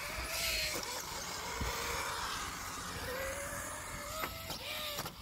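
Brushless motor of an RC rock crawler whining, its pitch gliding up and down as the throttle changes, over a steady hiss.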